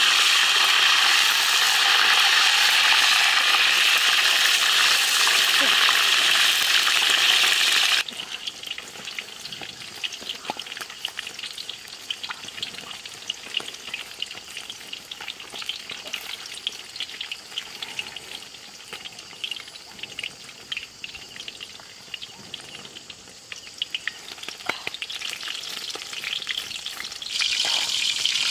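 A whole fish deep-frying in hot oil in a metal wok, a loud, steady sizzle. About eight seconds in it cuts abruptly to a quieter crackle with many small pops, which grows louder again near the end.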